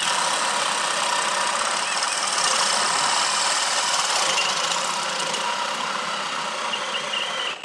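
Milwaukee cordless hammer drill in drill mode on speed 2, boring a large wood bit through a thick wooden beam: the motor runs steadily under load while the bit chews through the wood. It stops abruptly near the end as the hole is finished.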